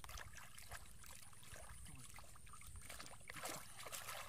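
Shallow muddy water splashing and sloshing as a person wades and gropes through it by hand, with a few stronger splashes near the end.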